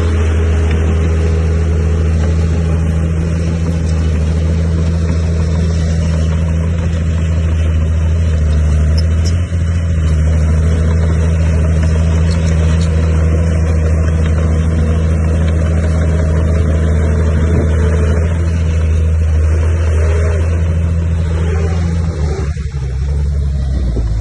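Heavy diesel engine of earthmoving machinery running steadily under load, with a brief change in engine note near the end.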